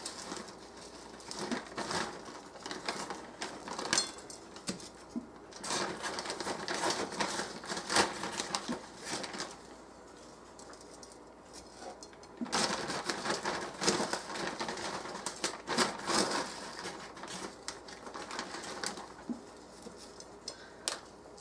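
Plastic gallon zip-top bag of breadcrumbs crinkling and rustling while breaded pork chops are lifted out with tongs, with light clicks of the tongs against the plate. The handling comes in bursts, with a quieter spell around the middle.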